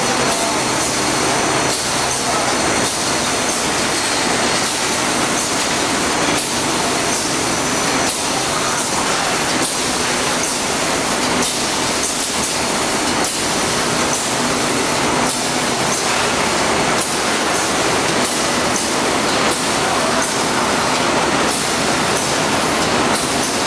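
PE protective film coating line running: a steady, loud machine noise, mostly an even hiss, with faint high-pitched whines on top.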